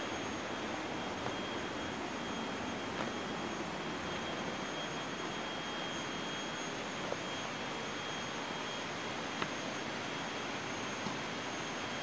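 Steady rushing background noise with a faint, high, steady whine over it, and a few light scattered clicks of footsteps.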